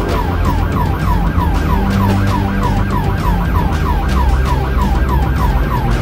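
Police car siren in a fast yelp, about four rising-and-falling sweeps a second, over a steady low rumble of the moving cruiser.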